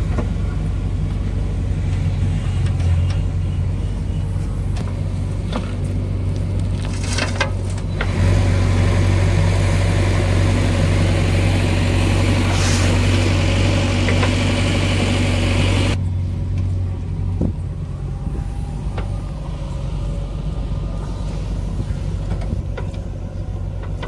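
JCB 3DX backhoe loader's diesel engine running under load as the backhoe digs and lifts soil, a steady low drone. About eight seconds in it turns abruptly louder and harsher, then drops back about sixteen seconds in.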